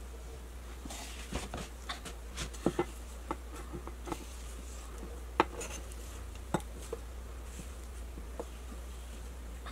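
A knife and a bamboo cutting board knocking and scraping as chopped herbs are pushed off the board into a bowl: scattered light clicks and knocks, the sharpest about five and a half seconds in, over a steady low hum.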